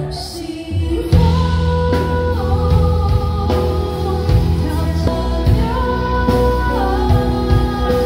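A female singer singing long held notes with a live band behind her. The band drops back briefly at the start and comes back in full about a second in.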